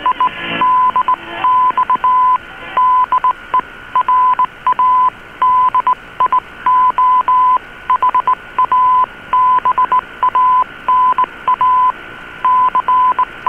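Morse code: a single tone of about 1 kHz keyed on and off in long and short elements, heard over a shortwave AM broadcast on an Icom IC-R8600 receiver. Steady band hiss and a faint steady higher whistle sit under it.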